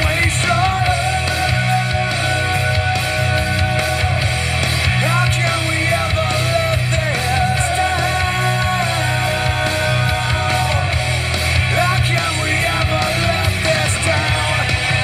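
Rock song played loud through a Bumpboxx portable boombox speaker, with a heavy, steady bass line under the guitar and vocal parts.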